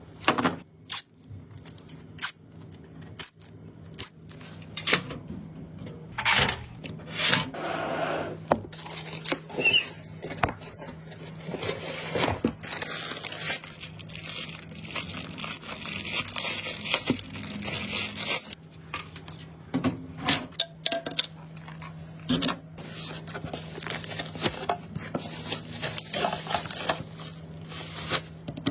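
Hands handling PC components and their packaging: a string of sharp clicks, knocks and scrapes, with a longer stretch of rustling or tearing about halfway through, over a low steady hum.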